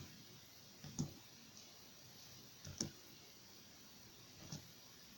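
Sticky homemade slime being worked and pulled off the hands: a few faint, short clicks and squelches a second or two apart.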